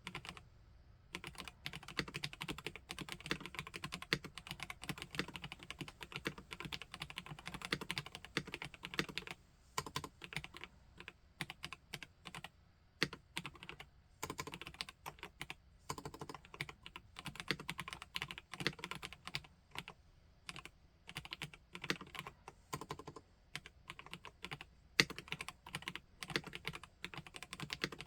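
Mechanical keyboard typing on a PK x BIOI Command 65 custom keyboard fitted with Dolch keycaps: rapid runs of key clicks broken by a few short pauses.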